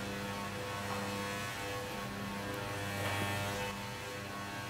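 Electric meat marinating tumbler with a 300-watt motor running, its closed stainless-steel drum turning a load of seasoned chicken pieces; a steady motor hum.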